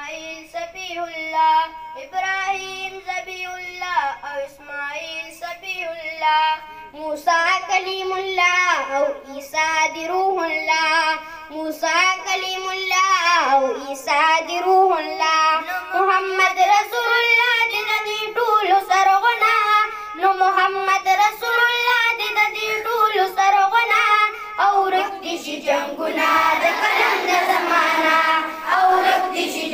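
A boy singing a school tarana into a microphone, one melodic voice with long held notes. Near the end the singing grows fuller and louder.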